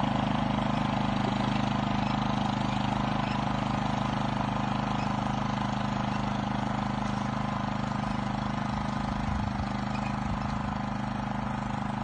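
Small engine of a ride-on onion harvester running steadily at a constant speed as it digs along the row, growing slowly fainter as it moves away.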